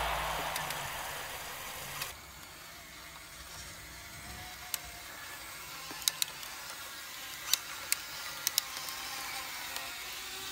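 Faint steady hum of a radio-controlled toy tractor's small electric drive, with scattered light clicks. Background music fades out over the first two seconds.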